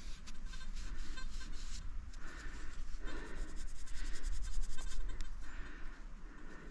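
Gloved fingers rubbing soil off a freshly dug metal ring: scratchy rubbing in a series of strokes, with small clicks.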